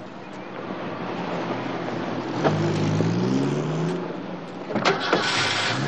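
A car engine speeding up as a car pulls away, growing louder over the first few seconds and rising in pitch. A couple of sharp knocks come near the end, followed by a hiss.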